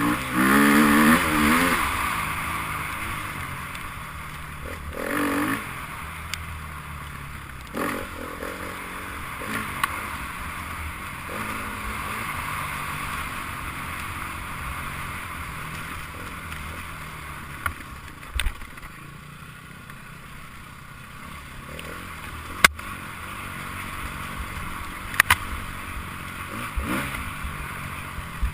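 Enduro motorcycle engine revving hard as a bike passes in the first couple of seconds, with shorter revs a few seconds later. After that come fainter engine sound, a steady hiss and a few sharp clicks.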